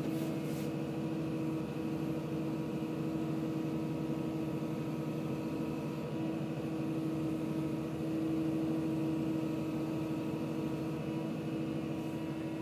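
Caterpillar 323 hydraulic excavator running steadily, heard from inside the cab: an even engine drone with a steady tone held over it.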